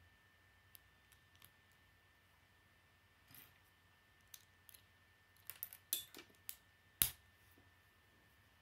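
Small plastic Lego bricks being handled and pressed together: scattered light clicks and snaps, a quick cluster about five and a half to six and a half seconds in, and the loudest single snap about seven seconds in.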